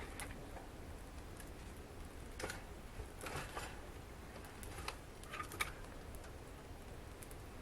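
Wood fire crackling in a fireplace: irregular pops and snaps, a small cluster of them near the middle, over a faint steady low rumble.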